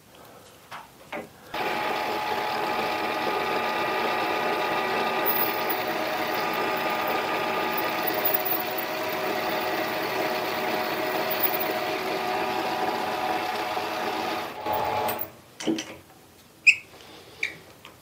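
Mini lathe running, its spindle turning while a boring bar bores out the centre hole of an aluminium pulley blank: a steady machine whine made of many tones. It starts about a second and a half in and stops about three and a half seconds before the end, with a few small clicks before it starts and after it stops.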